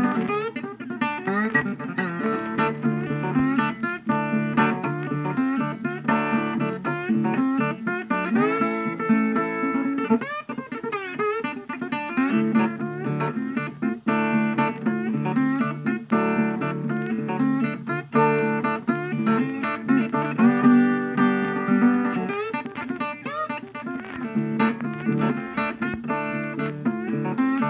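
Background music: a guitar instrumental with plucked and strummed notes, some of them bending in pitch.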